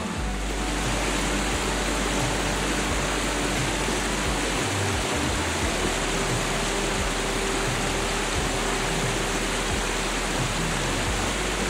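A waterfall rushing steadily as it cascades down stepped rock ledges: a dense, even roar of falling water.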